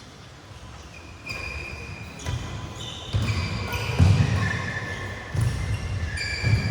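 Badminton players' shoes squeaking and feet thudding on an indoor court floor during play. Short high squeaks and several dull thuds follow one another from about a second in.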